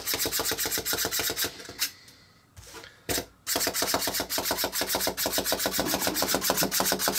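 Clockwork wind-up Rowlet toy running: its spring motor gives off a rapid, even ticking as it hops across the table. It stops about two seconds in and starts up again about a second and a half later.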